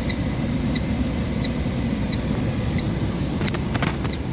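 Hazard warning lights ticking evenly, about three ticks every two seconds, over the steady low rumble of the stopped vehicle's idling engine. A short burst of clicks comes near the end.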